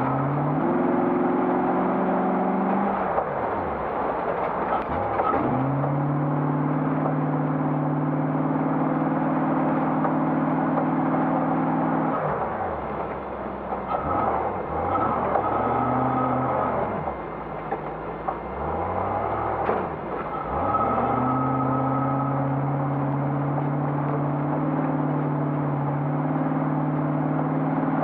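A 1991 Range Rover Classic's 3.9-litre V8 under race load: it revs up and holds steady revs for several seconds at a time, drops away briefly two or three times as the throttle is lifted, then picks up again, over steady road and body noise heard from inside the cabin.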